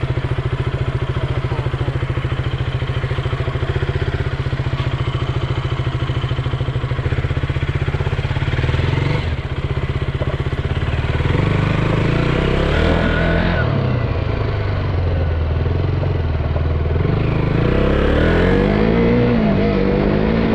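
KTM 200 Duke's single-cylinder four-stroke engine running, steady in pitch at first. From about nine seconds in, its pitch rises and falls again and again as it revs up and comes off the throttle.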